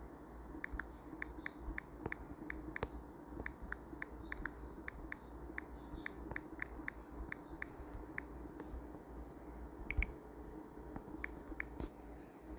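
Short, light, irregular clicks, about three or four a second, from typing on a smartphone's touchscreen keyboard. A low steady hum sits underneath.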